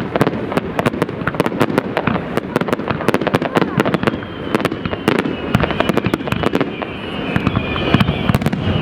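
Fireworks display in a dense barrage: rapid, overlapping bangs and crackles with no let-up, joined in the second half by a faint whistle falling in pitch.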